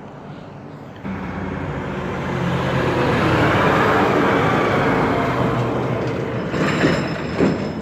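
Heavy tri-axle dump truck driving past close by: diesel engine and tyre noise that comes in abruptly about a second in, swells as the truck passes and then eases off. A thin high whine joins near the end.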